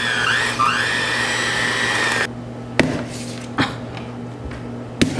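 Electric hand mixer running with a steady whine, its pitch dipping a few times as the beaters work through thick cookie dough, then switched off about two seconds in. A few short knocks follow.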